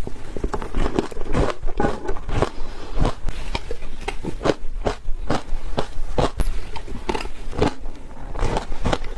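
Shaved ice being bitten and chewed close up: a steady run of crisp crunches, about two a second.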